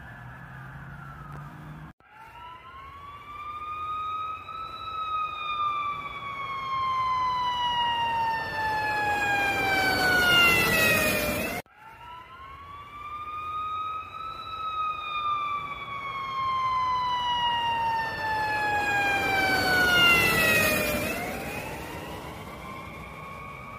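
A siren winding up in pitch and then sliding slowly down, heard twice with a sudden cut between. Each time it grows loudest, with a rush of noise, just before the pitch bottoms out, and the second one fades near the end.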